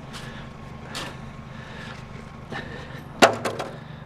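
Vehicle engine idling with a steady low hum. About three seconds in comes a sharp clatter of several quick knocks.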